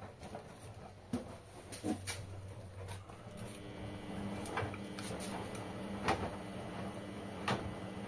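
LG front-loading washing machine tumbling a soapy wash load: wet laundry sloshing in the drum, with irregular sharp knocks and a steady motor hum that sets in about three and a half seconds in.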